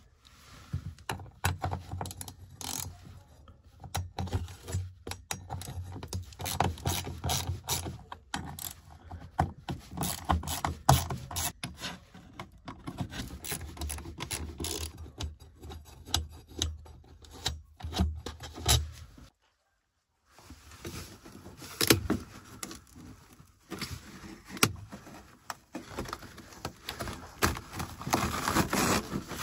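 Small socket ratchet clicking in runs as the screws holding a speaker in a carpeted parcel shelf are backed out, with the tool and screws rattling. Near the end, scraping and crinkling as the old carpet is pulled up.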